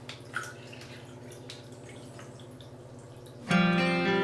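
Faint ticks and a small drip over a low steady hum as a small toy is lifted out of a cup of liquid, then acoustic guitar music starts about three and a half seconds in and is the loudest sound.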